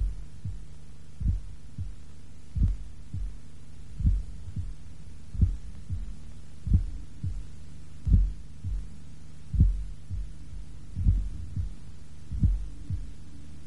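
A low, heartbeat-like double thud, a strong beat and a weaker one just after, repeating about every one and a half seconds over a steady low drone: a slow pulsing soundtrack.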